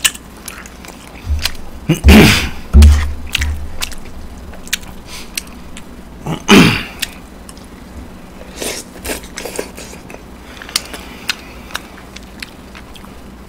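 Close-miked eating: chewing with many small clicks of food and a wooden spoon. There are two louder breathy bursts from the eater, about two seconds in (with low thumps) and again about six and a half seconds in.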